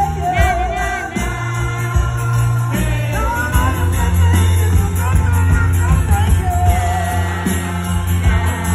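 Live band playing a song, loud and steady, with a lead singer over guitars, a heavy bass line and drums.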